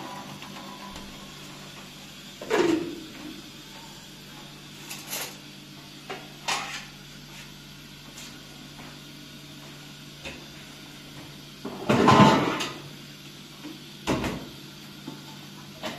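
A handful of separate knocks and scrapes, about six, the loudest about twelve seconds in, over a steady low hum.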